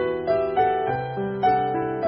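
Background piano music, with notes struck about three times a second and each fading away.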